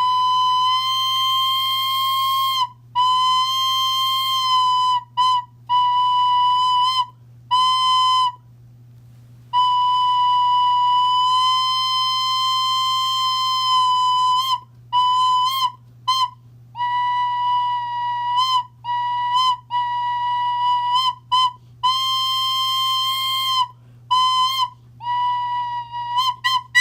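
Homemade whistle blown in a series of blasts on one steady pitch: several long blasts, one lasting about five seconds, mixed with many short toots and a brief pause near the middle. A faint low hum runs underneath.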